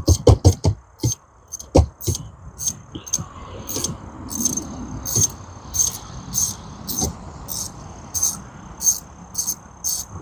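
Wrench and socket working a tight bolt on a boat's gimbal housing: a quick run of sharp metal clicks and knocks in the first two seconds, then scattered softer knocks. Under it, a steady high ticking about twice a second.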